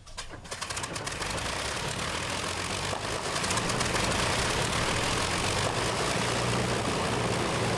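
Piston aircraft engines firing unevenly, then settling into a steady run and growing louder over the first few seconds.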